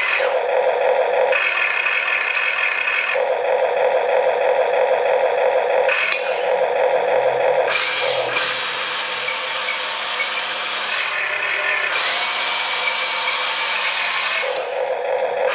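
Huina RC excavator's electric motors and gearboxes whining in spurts as the boom and bucket are lowered and raised, the pitch shifting each time a new movement starts.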